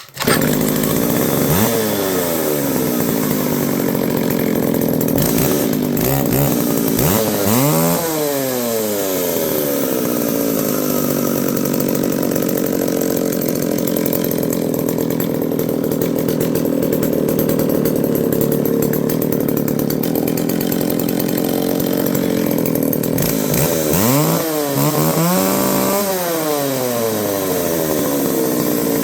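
Vintage McCulloch 610 Pro Mac two-stroke chainsaw running steadily and revved up and back down a few times, running out well.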